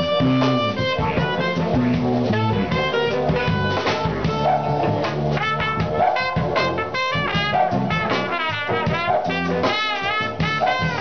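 Live jazzy R&B band playing: a trumpet comes in with a solo about halfway through, over saxophones and the steady low drone of a didgeridoo.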